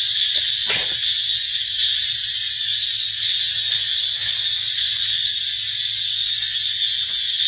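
Steady high-pitched drone of forest insects such as cicadas, with a short falling call about a second in.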